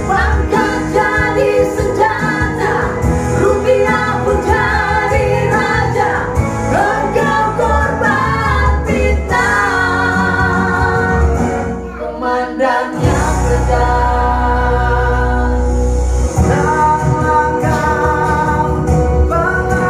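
A man and a woman singing a duet, sometimes together and sometimes in turn, over instrumental backing with a steady low bass. The man sings alone near the end.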